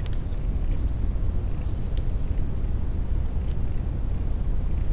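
A few faint clicks from pliers setting the fuel pump fuse into a car's underhood fuse box, over a steady low rumble.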